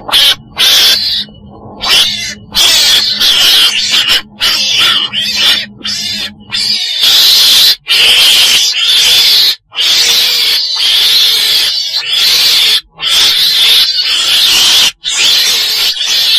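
Recorded calls of a chồn đèn, a small weasel-family animal, used as a trapping lure: a loud run of harsh, raspy call bursts broken by many brief gaps.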